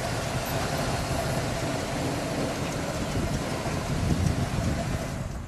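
1967 Oldsmobile Toronado's 425 cubic-inch V8 idling steadily, then cutting off near the end as the engine is shut down.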